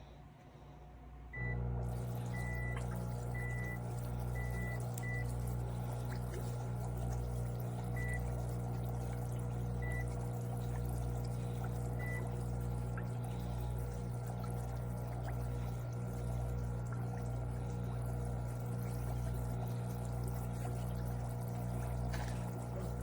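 KNQZE heated foot spa switching on about a second in: its motor hums steadily while the water in the basin bubbles and churns. Several short, high beeps from its controls sound over the first dozen seconds.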